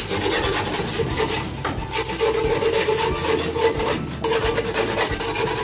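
Pigeon droppings being scraped off wooden plywood perches: a continuous rasping scrape, with a short break about four seconds in.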